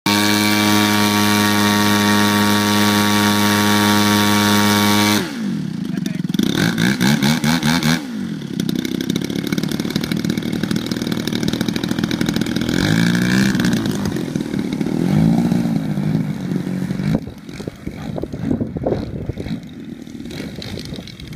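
Engine of a large-scale Hangar 9 Extra 300 RC aerobatic plane running steadily at high throttle on the ground, then dropping to a lower speed about five seconds in, with several short throttle blips that rise and fall in pitch. It grows fainter near the end as the plane taxis away.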